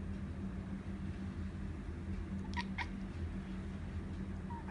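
Tabby cat chirping at birds outside the window: two short, sharp chirps about halfway through and a brief rising-then-falling chirp near the end. A steady low hum runs underneath.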